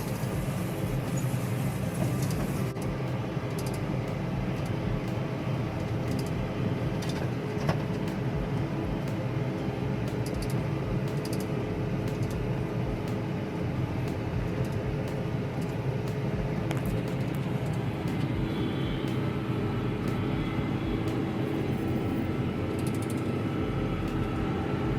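Farm tractor engine running steadily while pulling a round baler in a hay field: a constant low drone with a steady hum above it.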